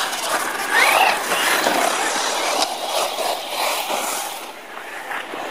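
Electric radio-controlled cars driving on a dirt track: a motor whine rises as one speeds up about a second in, over the steady scrabble of tyres on loose dirt.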